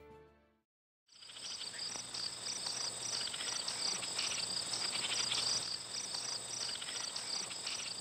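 Insect chorus of crickets: a steady high-pitched trill with rapid, repeating chirps over it, fading in about a second in.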